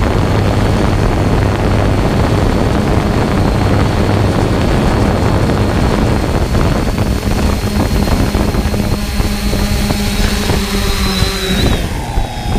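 3DR Solo quadcopter's motors and propellers running with a steady whine and rush, heard from the drone itself as it descends to land. Near the end the motor tones fall in pitch and cut off as it touches down and the motors spin down.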